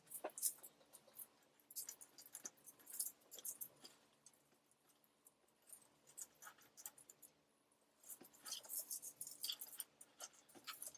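Hand work at close range: irregular scratching, crackling and small clicks, busiest in the first few seconds and again from about eight seconds in.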